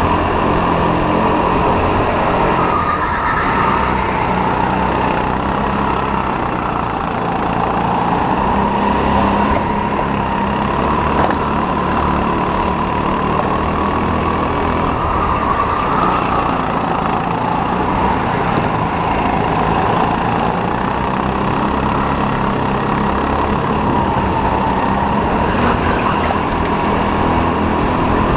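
Sodi RT8 racing kart's engine running hard, heard close up on board, with its pitch rising and dipping as the throttle is worked through the corners.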